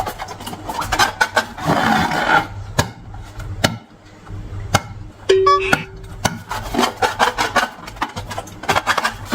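Long latex balloons being rubbed and handled, with many sharp clicks and a short squeak about five seconds in, over background music.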